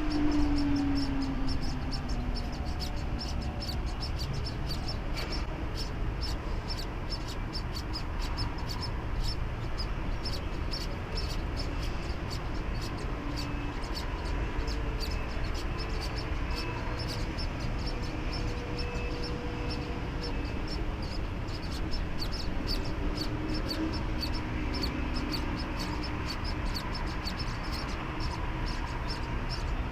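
Outdoor ambience: a fast, steady run of short high chirps throughout, over a low rumble, with a few faint calls now and then.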